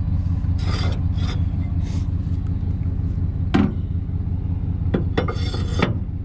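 A vehicle engine idles steadily while a metal trailer hitch is worked: scraping and rattling of steel parts, with one sharp clank about three and a half seconds in and more rattling near the end.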